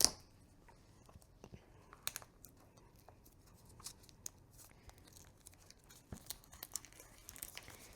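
Hands handling tarot deck boxes and packaging: scattered light clicks and taps with brief crinkling rustles, a sharper click at the very start.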